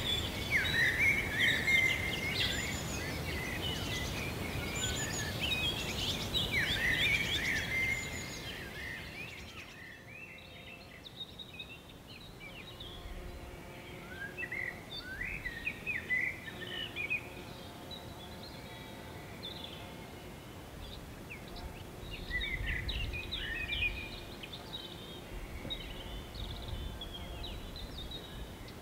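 Small birds chirping and singing in many short calls and trills over a low outdoor rumble, dipping in level for a few seconds about ten seconds in.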